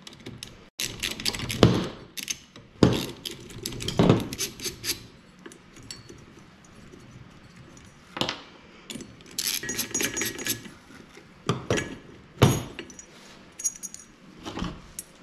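Ratchet wrench, socket and loose bolts knocking and clinking against metal in scattered, irregular clatters, with a few ringing metallic clinks about two-thirds of the way through, as the recoil cup's 10 mm bolts are undone and set down.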